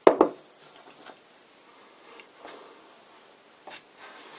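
Handling sounds of a bronze lathe bearing bushing on a wooden bench: a sharp knock at the very start, then faint scattered taps and rustles.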